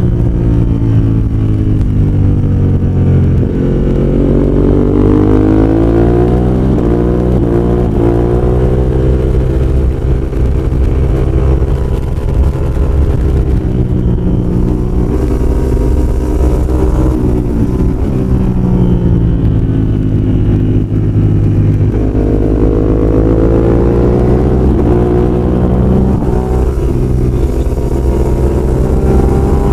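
Ducati 916 superbike's V-twin engine at racing speed. Its pitch repeatedly climbs as the bike accelerates and drops back as it slows for corners.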